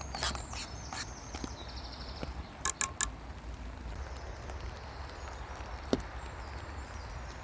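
A few sharp knocks and clicks: three in quick succession about three seconds in and one more about six seconds in, over a low steady rumble.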